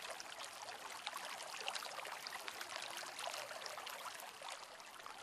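Faint, steady rain ambience: a soft patter of many small drops.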